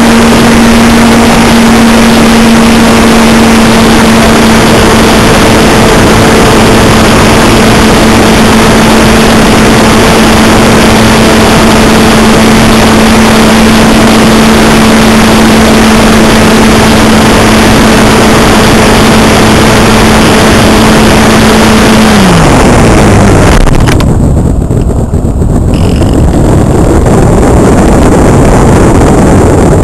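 Electric motor and propeller of a Multiplex Cularis model motor glider, picked up by its onboard camera. It runs at one steady pitch under heavy wind rush on the microphone. About 22 seconds in the motor cuts, its pitch dropping away, and only the wind rush of the glide is left.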